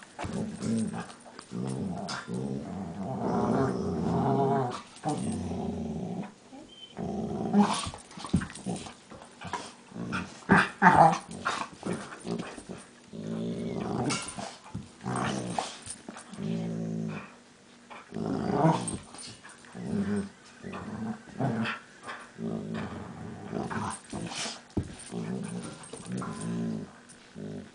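Two dogs play-fighting, growling almost without a break in long rumbling bouts. Several short, sharper and louder cries break in, the loudest about eleven seconds in.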